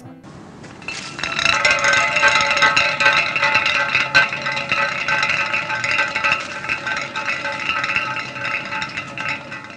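Empty metal aerosol spray can rolling down an asphalt street: a continuous rattling scrape with a ringing metallic tone. It starts about a second in, has one sharper knock a few seconds later, and fades near the end.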